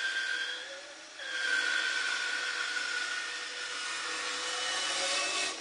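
Homemade wooden bandsaw with a narrow quarter-inch blade cutting slowly through a deep tilt cut in a wooden paddle blank: a steady noisy whine with a high singing tone. It eases off about a second in, picks up again, and cuts off suddenly near the end.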